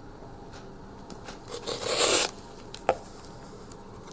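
Handling noise from an MTech rescue folding knife being worked in the hand: a few faint clicks, a brief rustling scrape about two seconds in, then a single sharp click.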